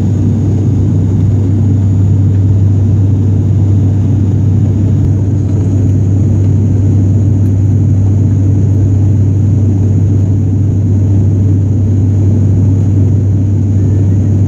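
Turboprop airliner's engines and six-bladed propellers droning steadily at climb power just after takeoff, heard inside the cabin as a loud, even, low hum.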